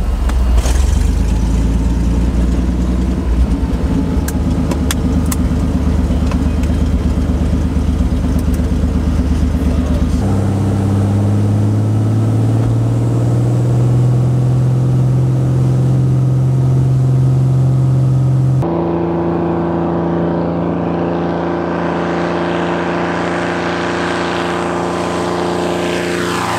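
Single-engine floatplane's piston engine and propeller running hard, a loud steady drone that climbs slowly in pitch through the middle and changes abruptly twice. Near the end the plane passes close by and its engine pitch drops as it goes over.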